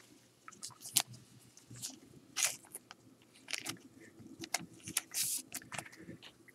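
Trading cards from a 2018 Topps Allen & Ginter pack being handled: short, irregular scrapes and flicks as the cards slide over one another, with two longer swishes, about two and a half and five seconds in.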